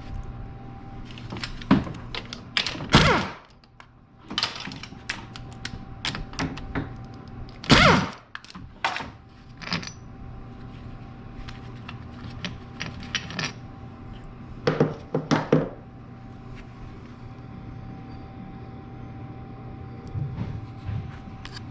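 Hand tools and bolts clinking and knocking on metal during work on the engine mount. There are louder knocks about three and eight seconds in and a quick run of clicks around fifteen seconds, over a faint steady hum.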